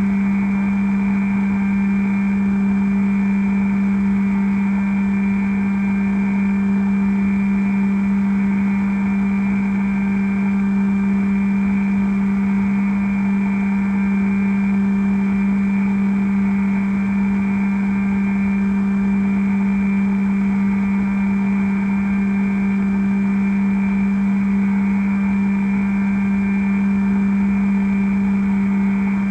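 Bixler v1.1 RC plane's electric motor and propeller running at steady throttle in flight, heard from the onboard camera: a loud, constant hum at one unchanging pitch.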